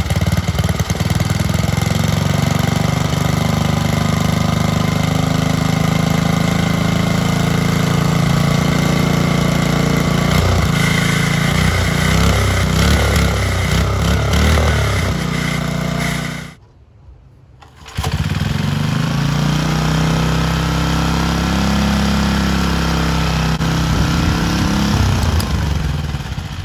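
A 1979 Briggs & Stratton 5 hp horizontal-shaft single-cylinder engine on a garden tiller, running on its first run in over 30 years, its speed wavering midway. The sound breaks off for about a second and a half past the middle, the engine runs on again, and near the end its pitch falls as it slows.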